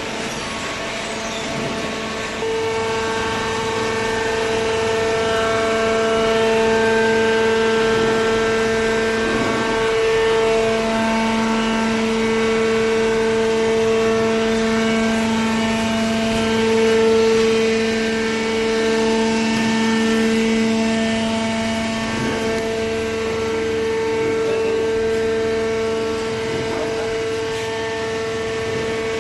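Hydraulic pump and motor of a vertical paper baler running steadily, a constant hum with held tones, growing louder about two and a half seconds in.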